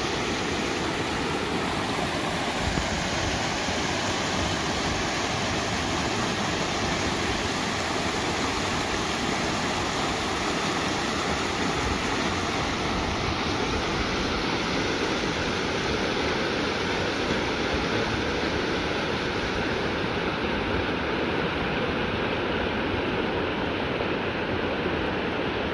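Shallow river rushing over rocks in riffles: a steady rush and splash of flowing water.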